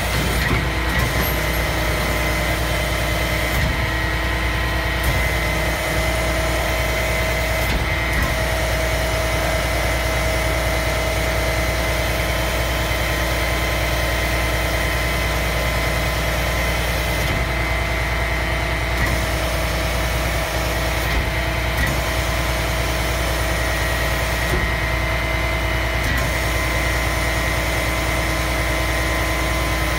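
Skip-loader truck's diesel engine running steadily at idle while it drives the hydraulic arms, with a constant high whine over the low engine rumble.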